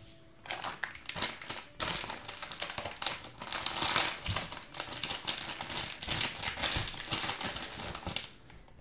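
Foil blind-bag toy packet crinkling and crackling in the hands as it is torn open and its contents pulled out, a dense irregular run of crackles that starts about half a second in and stops near the end.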